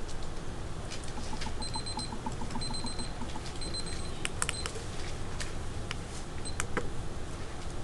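Classroom room tone during silent seatwork: a steady low hum with scattered small clicks, a quick run of soft ticks, and three short high electronic beeps about a second apart.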